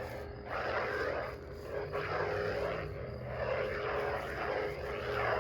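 Electronic lightsaber hum from a Theory Sabers Soldier hilt's sound board: a steady buzzing drone with a higher whoosh that rises and falls about once a second as the lit blade is moved.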